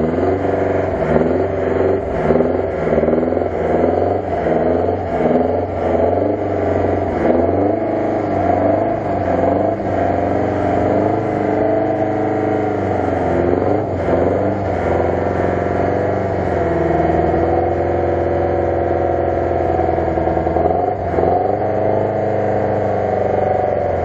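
UAZ-469 engine revving up and down over and over as the jeep works to climb out of a muddy rut, holding steadier for a few seconds past the middle before revving again near the end.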